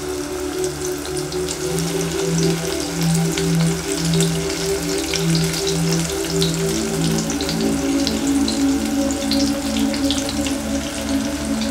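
Battered broccoli bites frying in a pot of hot oil, a dense high crackle and sizzle as the pieces go in, over background music with a steady low beat.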